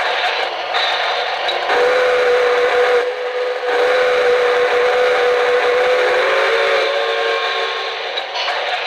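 Sound system of an O-gauge model steam locomotive: a recorded steam whistle blows one long blast of about five seconds over a steady hiss of steam.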